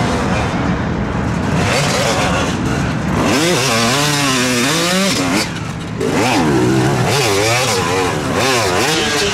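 Hill-climb racing motorcycle engine revving hard, its pitch swinging up and down again and again as the throttle is worked. It drops off briefly about five and a half seconds in, then picks up again.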